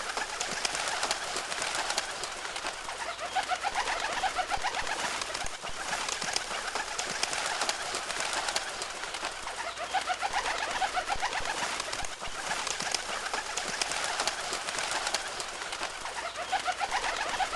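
A flock of birds flying: a dense, continuous mix of many wingbeats and bird calls, with warbling calls coming up now and again.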